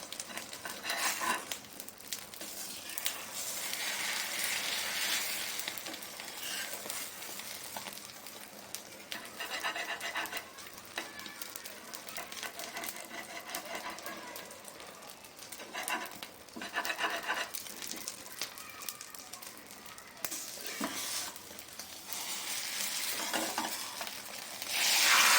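Omelette frying in a hot pan, sizzling steadily, with scraping from stirring at intervals. Near the end the sizzle suddenly gets much louder.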